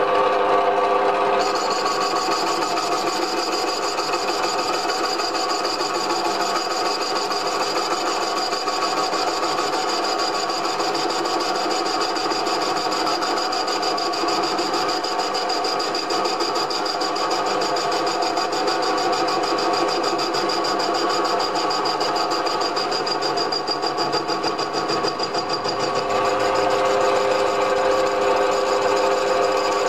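Small benchtop metal lathe running with its chuck spinning a casting: a steady motor-and-gear whine made of several tones. A higher whine joins about a second and a half in, and the sound gets a little louder near the end.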